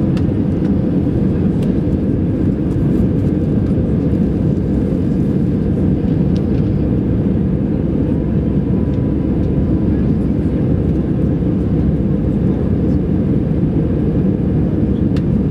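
Steady roar of an Airbus A319's engines and rushing air, heard from inside the passenger cabin during the climb after takeoff.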